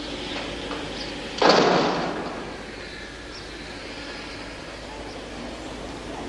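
A single loud slam about one and a half seconds in, dying away over about half a second, like a heavy door being shut. Otherwise a steady low background hiss.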